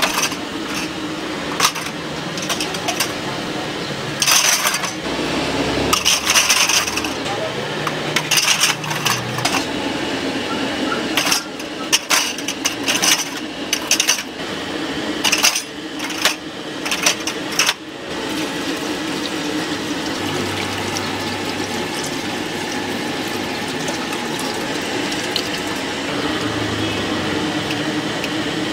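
Stainless-steel cups clinking against each other and the metal steamer tray as they are set down one after another, in sharp metallic clinks, some ringing briefly. The clinks stop about two-thirds of the way through, leaving a steady background noise.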